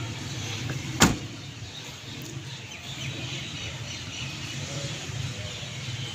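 Suzuki Mehran's 660cc K6A three-cylinder engine idling steadily, with one sharp thud about a second in, typical of a car door being shut.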